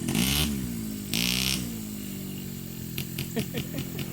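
ATV engine revving up and easing off twice in quick succession, then running more steadily at a lower speed.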